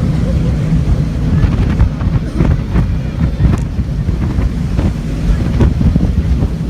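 Jet boat running on the river, a steady low rumble, with wind buffeting the microphone.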